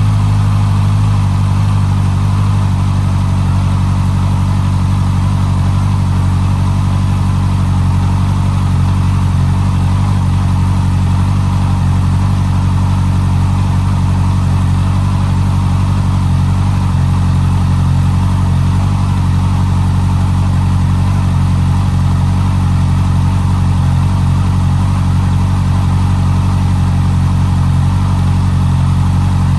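Honda CB650R's inline-four engine idling steadily through its stock exhaust.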